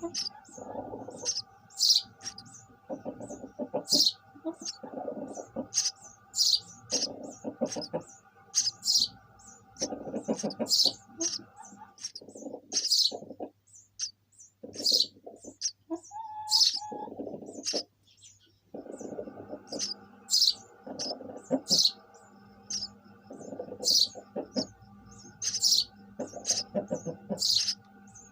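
Sparrows chirping: short, high, repeated chirps about once a second, over a steady background hum that drops out for a few seconds midway.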